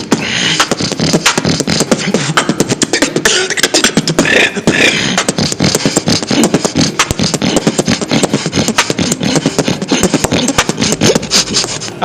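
Human beatboxing: a fast, continuous pattern of mouth clicks and drum sounds over a low buzzing inward-breath snore bass.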